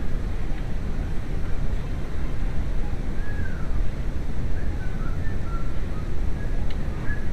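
VW New Beetle's 2.0L AEG four-cylinder engine running with a steady low rumble.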